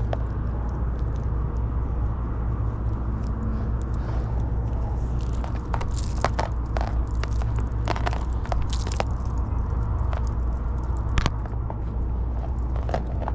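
Scattered clicks, crackles and scrapes of lengths of insulated wire being handled and untangled, busiest in the middle of the stretch, over a steady low hum.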